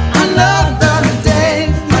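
Background pop song with a sung vocal over a band backing and a steady beat.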